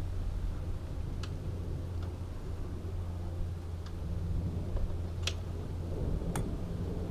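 Pliers clicking against metal cable clamps on a motorcycle's steel pannier rack: a few sharp light ticks, the two loudest about five and six seconds in, over a steady low hum.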